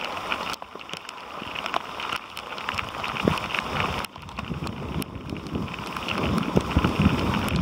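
Rain falling, with scattered sharp drop clicks, and wind buffeting the microphone in a low rumble that grows stronger in the last couple of seconds.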